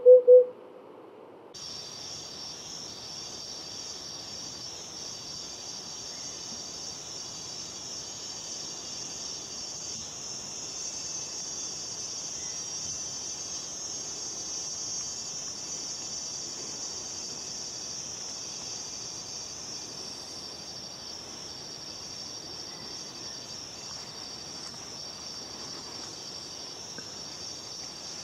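The tail of a pulsing electronic tone ends half a second in. From under two seconds in there is a steady, high-pitched insect chorus, with one trill that pauses briefly every second or two.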